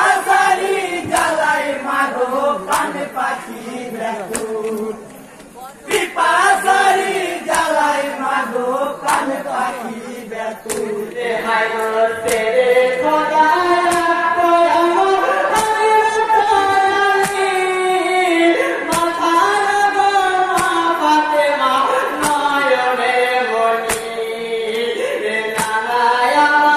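Bengali matam jari sung by men's voices through a PA: a group chant in short broken phrases, then about eleven seconds in a male lead singer's long, gliding, held melodic lines. Sharp beats recur roughly once a second throughout.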